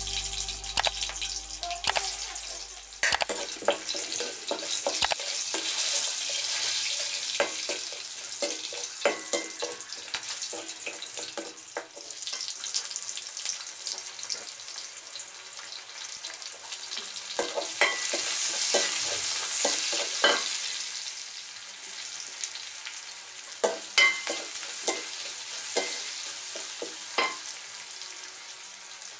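Garlic and sliced onions sizzling in hot oil in a large metal wok, stirred with a ladle that scrapes and knocks irregularly against the pan.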